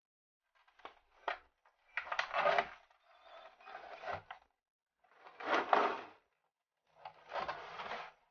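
Cardboard packaging being slid open: the inner box scraping and rubbing out of its cardboard sleeve in several strokes of a second or so, with a couple of light knocks about a second in.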